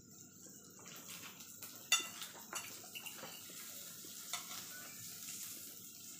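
Forks and tongs clinking against plates and a tabletop grill pan, a scatter of sharp clinks with the loudest about two seconds in, over a faint steady sizzle of food cooking on the grill.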